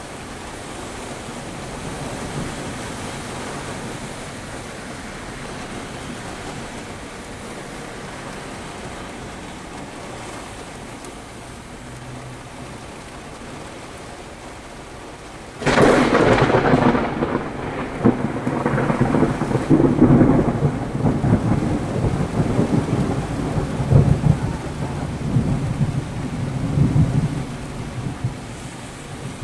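Thunderstorm heard from inside a car: a steady rain hiss, then about halfway a close thunderclap breaks in suddenly and rolls on in rumbling waves for over ten seconds, dying down near the end.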